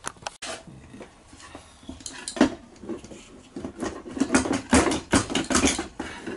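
Metal knocks and clinks of a Honda VFR400R's four-carburettor bank being lifted out of a steel tray and handled, its throttle linkage and fittings rattling. A sharp click comes at the start, and a quick run of knocks and rattles comes in the second half.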